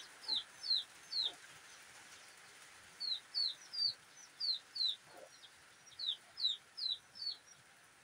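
A bird peeping: short, high notes that fall in pitch, about three a second in runs, with a pause of about a second and a half after the first three, over a faint steady hiss.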